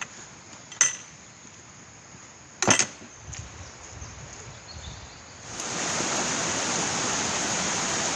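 Two sharp knocks, then about five and a half seconds in a steady rush of running stream water starts suddenly and carries on.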